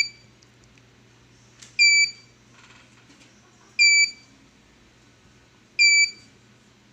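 K Guard AR821 CCTV DVR's built-in buzzer giving short high-pitched beeps, one about every two seconds. It is the recorder's hard disk error alarm: the installed drive fails to format and needs replacing.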